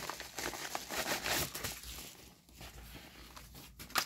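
A padded paper mailer being torn open and handled, with crinkling and tearing that is busiest in the first two seconds and quieter after, as a DVD case is pulled out.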